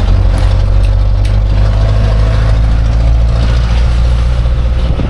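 Jeepney engine running with a steady low rumble.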